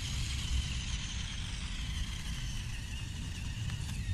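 Electric motor and drivetrain of a Flytec 9118 1:18 RC crawler whining steadily at speed, the pitch sinking slowly, over a low rumble.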